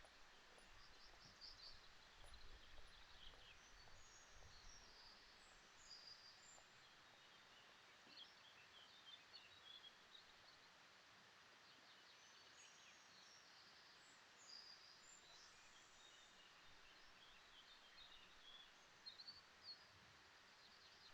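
Faint forest ambience: scattered short, high bird chirps over a steady low hiss.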